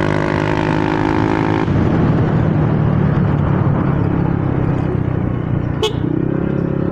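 Motorcycle engine and power-pipe exhaust running under way, with wind rushing past. The engine note eases off about two seconds in and picks up again near the end, and there is one sharp click shortly before the end.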